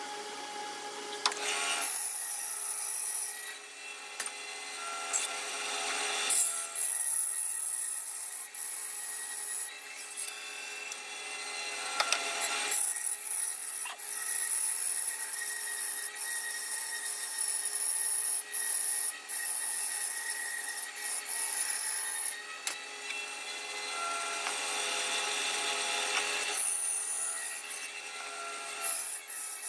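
Benchtop bandsaw running and cutting through a thick cedar block along a curved line. The sound shifts every few seconds as cuts begin and end.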